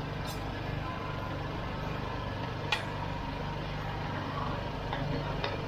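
A steady low mechanical hum, with one sharp clank about halfway through and a few lighter clicks near the end.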